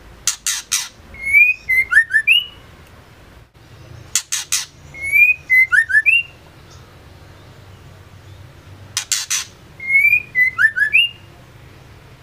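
Female white-rumped shama calling three times, the phrases about four to five seconds apart. Each is a burst of three harsh notes followed by a short run of quick whistled notes.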